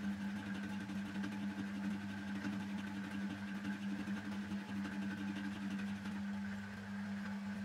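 Homemade metal lathe running with its chuck and workpiece spinning: a steady, even electric-motor hum with a faint fast rattle over it.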